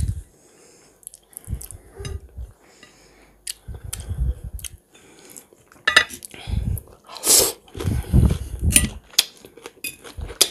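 A metal fork clinking and scraping against a foil tray of cucumber and tomato salad as pieces are speared, with scattered sharp clicks and a few louder rustles and thumps, the loudest about seven seconds in.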